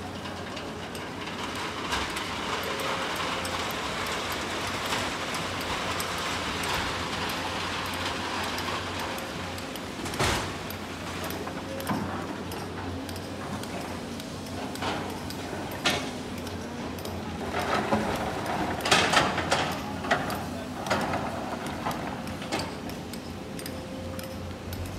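A crawler excavator's diesel engine runs with a steady low drone while it loads a dump truck. A rushing pour of sand and gravel builds over the first few seconds, followed by scattered knocks and a burst of clanking near the end as rocks strike the truck's metal bed.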